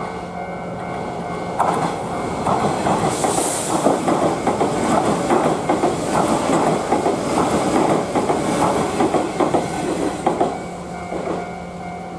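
Kintetsu electric train passing over a level crossing, its wheels clattering over the rail joints. The clatter starts about a second and a half in, stays loud for about nine seconds and falls away near the end.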